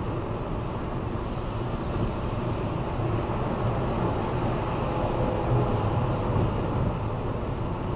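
Steady road and wind noise inside a car cabin at highway speed, a low rumble of tyres on the pavement. It grows a little louder midway as the car draws alongside and passes trucks in the next lane.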